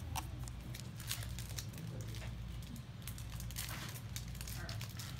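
Foil booster pack wrapper crinkling and rustling in short irregular bursts as a pack is pulled from a Yu-Gi-Oh booster box and handled.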